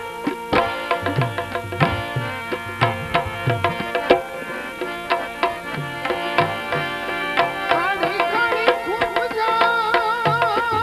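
Instrumental passage of a live Gujarati bhajan: tabla strokes keep a steady rhythm under sustained melodic tones. Near the end a wavering melody line with vibrato comes in over the drumming.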